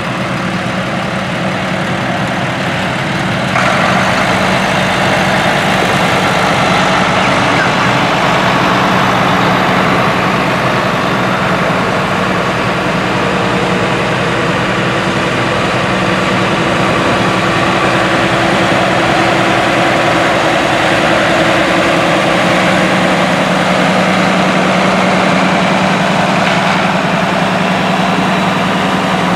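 Diesel engines of International Harvester tractors running steadily as the tractors drive past one after another, led by an International 1066 Turbo with its turbocharged diesel. The engine sound grows louder about three and a half seconds in.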